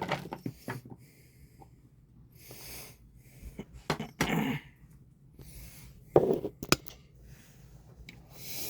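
Scattered clicks and knocks of a utensil and bowl being handled while ingredients are mixed, with a few short rushing noises in between.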